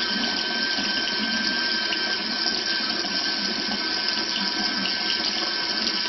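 Tap water running steadily from a faucet aerator into a washbasin, splashing onto the drain, with a thin steady high tone beneath it.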